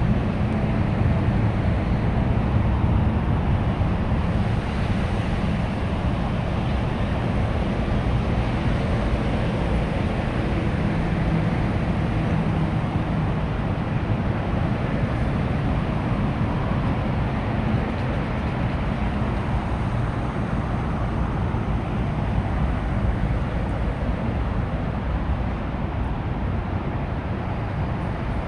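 Steady low rumbling roar of outdoor ambience: road traffic mixed with wind rushing over the phone's microphone, with no distinct events standing out.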